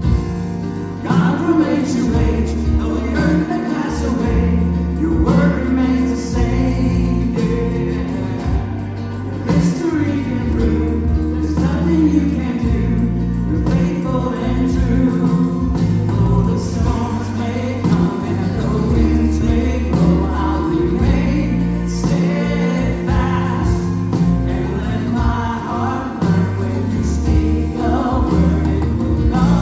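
Gospel worship music: a group of voices singing together over a band, with steady bass notes underneath that change every few seconds.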